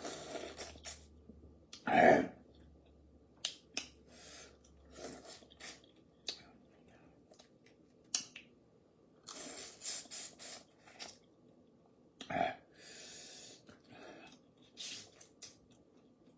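Close-up eating of boiled crawfish: scattered clicks and crackles of shells being cracked and peeled, with chewing and breathing. A loud short throat sound about two seconds in, and a smaller one about twelve seconds in.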